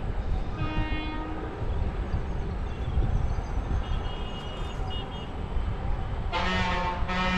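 Indian Railways train running with a steady low rumble, its horn sounding briefly about half a second in, then two loud short horn blasts near the end.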